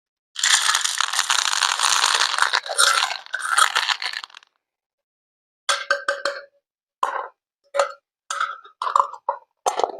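Water sounds in a toy doll bath: a rush of water lasting about four seconds, then a series of about eight short wet plops and gurgles.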